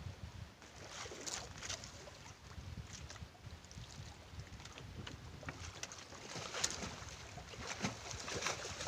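Small fishing boat at sea: water lapping against the hull, with wind buffeting the microphone and scattered light knocks and clicks.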